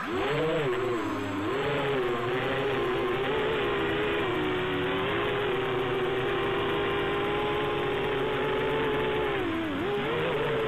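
Quadcopter drone's electric motors and propellers starting up abruptly and then running as a steady buzzing whine. The pitch wavers up and down with throttle changes and dips briefly about ten seconds in.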